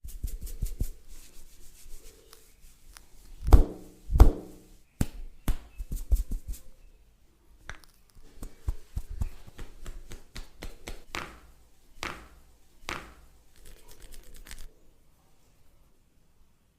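Head massage by hand: irregular slaps, taps and rubbing on the head and skin, with two heavier thuds about three and a half and four seconds in.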